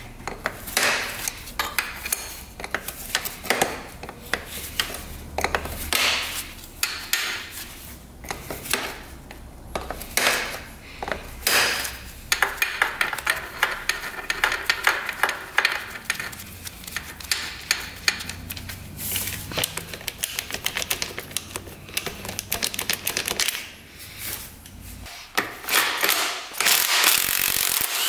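Hand tools at work on a dirt bike being taken apart: scattered metal clinks and knocks, then a run of fast ratchet-wrench clicking near the end.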